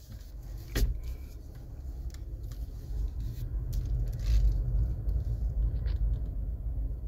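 Low rumble of a car heard from inside the cabin, with a sharp knock about a second in and scattered small clicks and scrapes of handling.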